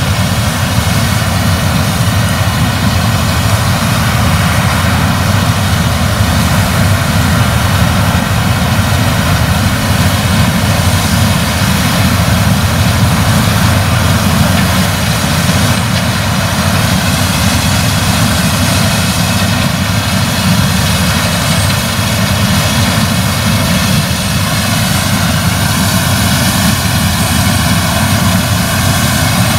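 Claas Lexion 770 TT tracked combine harvester working under load as it harvests rapeseed: a loud, steady drone of engine and threshing machinery that never lets up.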